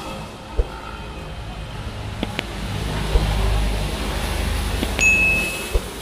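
City road traffic going by, with a vehicle passing close that swells between about three and four and a half seconds in. A few sharp knocks are scattered through it, and a short high tone sounds about five seconds in.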